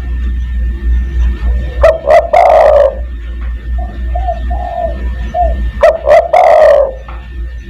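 Spotted dove (tekukur) cooing. Two loud phrases of low coos come about two seconds and six seconds in, with softer single coos between them.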